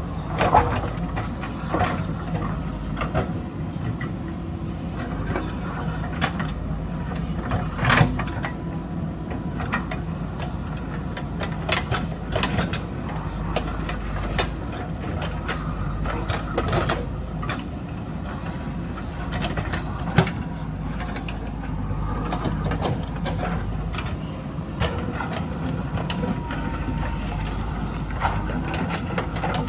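Heavy earthmoving machine's diesel engine running steadily under work, with scattered sharp knocks and clanks from the bucket working rock and soil. The loudest knocks come about eight and twenty seconds in.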